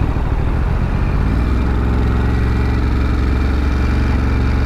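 Ducati Monster's L-twin engine running at a low, steady cruise, its revs rising slightly about a second in and then holding.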